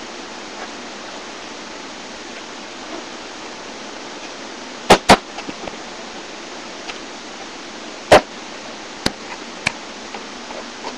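A basketball hitting and bouncing: two sharp impacts in quick succession about five seconds in, a single loud one about eight seconds in, then two lighter ones. Under it runs a steady hiss from the webcam's microphone.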